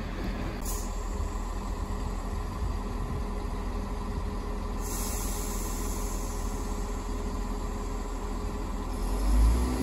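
Diesel multiple units idling, a steady low engine rumble that grows louder near the end.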